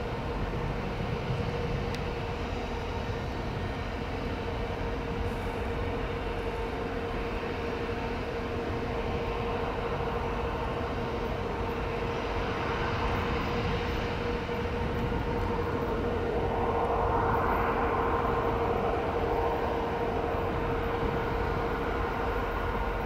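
EMD SD70I diesel-electric locomotive approaching at low speed: a steady engine drone with a constant mid-pitched tone over a low rumble, growing a little louder about two-thirds of the way through.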